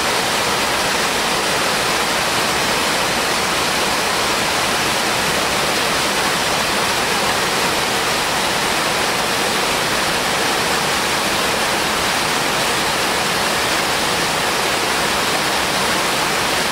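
Whitewater of a steep waterfall and rapids rushing steadily, an even, unbroken noise.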